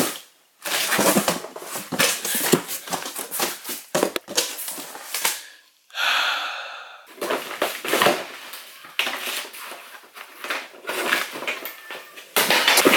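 Unboxing noises: a cardboard box and its packing being opened and the lawn mower's parts handled, a busy run of irregular scrapes, rustles and knocks.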